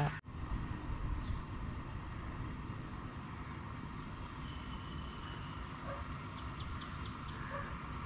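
Steady outdoor background noise, with a few faint short chirps now and then.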